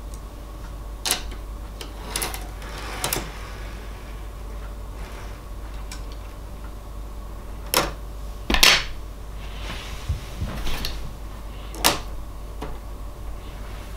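Small sharp plastic clicks and taps as N-gauge model freight cars are handled and set back onto the track by hand, about half a dozen spread out, the loudest about eight and a half seconds in, over a steady low hum.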